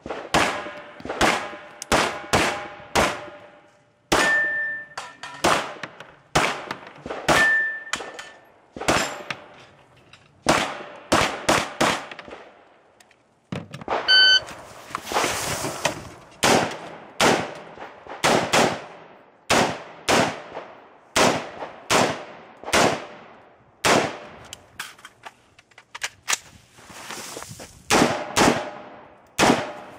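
Rapid strings of gunshots from a pistol and an AR-15-style rifle, each shot followed by a short echo, with struck steel targets ringing after some hits. About fourteen seconds in, a short high electronic beep from the shot timer starts a new string of fire.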